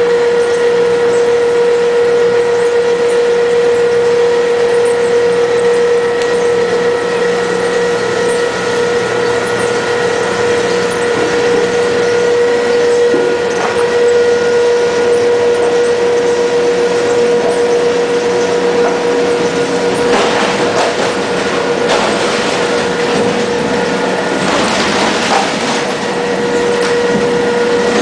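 Polystyrene recycling machine running, a steady motor whine over a continuous grinding noise. Two louder stretches of crackling crushing come about two-thirds of the way in and again near the end.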